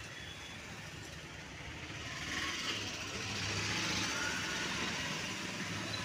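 Background road traffic: a steady low hum under a wash of noise that swells over the middle few seconds as a vehicle passes.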